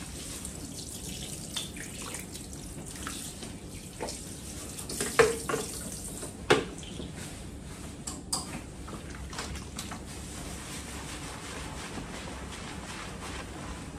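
Water spraying from a salon hand-held shower onto wet hair and into a ceramic shampoo basin during a hair rinse, with a few sharp knocks around the middle, the loudest sounds.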